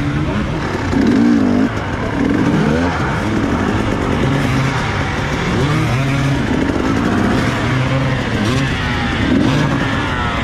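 Dirt bike engines revving, their pitch rising and falling again and again as the bikes work a steep trail climb.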